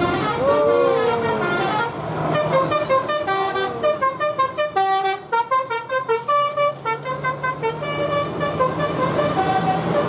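Tour bus's multi-tone telolet "basuri" horn playing a quick tune of short stepped notes, starting about two seconds in, over the low hum of the bus engine.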